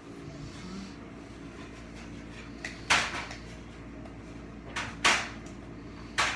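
Foil Pokémon booster pack wrapper crinkling as it is handled and torn open, in three short bursts.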